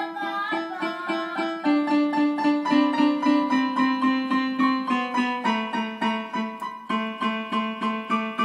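A young child playing a piano keyboard, striking notes in a steady repeated pulse of about three a second over a few lower notes that shift now and then.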